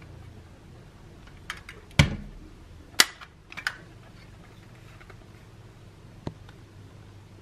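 Handling noise from a diecast LaFerrari model car turned in the hand: a few sharp clicks and knocks, the loudest about two seconds in and another a second later, then a lighter click near the end.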